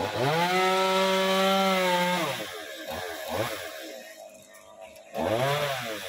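Stihl two-stroke chainsaw revved up to full speed at once, held there for about two seconds, then dropping back to a low, uneven idle. A second short rev rises and falls near the end.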